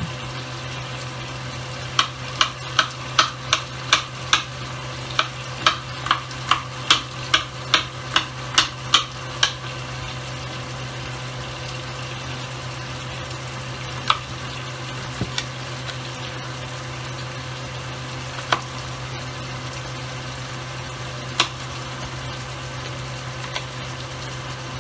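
Knife chopping an onion on a wooden cutting board: a quick run of about twenty sharp cuts, two or three a second, then a few single cuts spaced several seconds apart. A steady low hum runs underneath.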